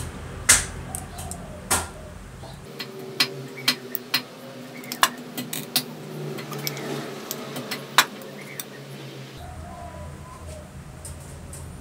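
Metal parts of a disassembled air compressor oil lubrication pump clicking and clinking as they are handled and pulled apart by hand: about a dozen sharp taps, the loudest about half a second in and near eight seconds.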